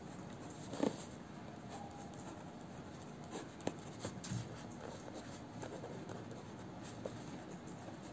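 Pen writing on paper: faint scratching strokes, with a few brief clicks, the sharpest about a second in.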